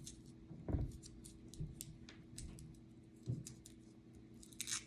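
Faint handling noises: scattered small clicks and two soft knocks, with a short rustle near the end, over a steady low hum.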